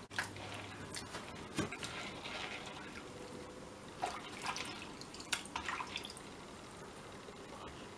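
Hands swishing and rubbing raisins in lukewarm water in a plastic colander: irregular small splashes and drips.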